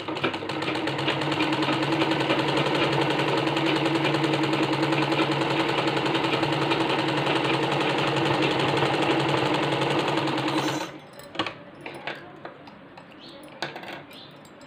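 Domestic sewing machine stitching a T-shirt's side seam, running at a steady speed with an even hum for about eleven seconds, then stopping abruptly. A few light clicks and fabric rustles follow.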